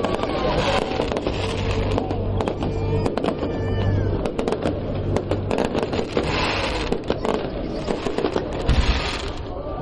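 Fireworks going off in quick succession, with many sharp bangs and crackles in a row.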